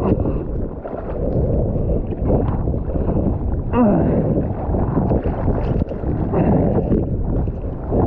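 Broken surf washing over and around a surfboard, whitewater rushing and sloshing against the board and the board-mounted camera, with wind buffeting the microphone. A churning, rumbling wash that surges and falls, with a sharper swish about four seconds in.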